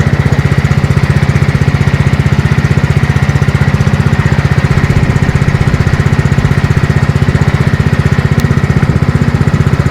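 A small engine running steadily and close by, with an even, rapid beat.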